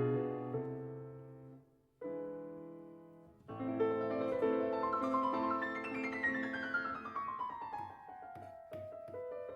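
Background solo piano music in a classical style: notes fade out to a brief break about two seconds in, then playing resumes with a long run of notes falling in pitch.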